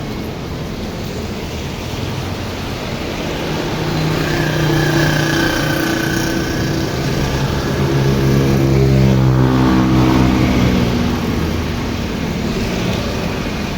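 Motor vehicle engines passing, the engine note swelling and loudest about two-thirds of the way through, over a steady hiss.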